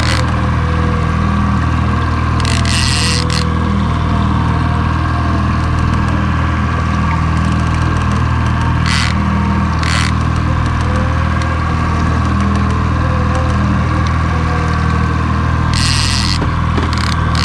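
Boat engine running steadily, with a few short bursts of noise about 3, 9, 10 and 16 seconds in.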